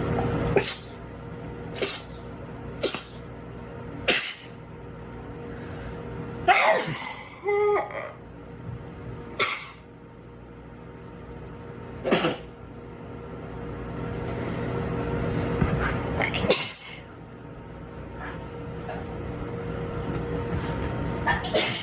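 A string of separate human sneezes, about ten in all, each a short sharp burst, spaced from about a second to several seconds apart. The one about six and a half seconds in runs longer and more voiced.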